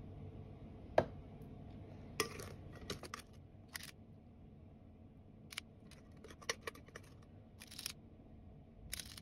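Metal trigger-release scoop clicking and scraping as it scoops cake batter and releases it into a metal muffin tin: short sharp clicks in small clusters, the loudest about a second in.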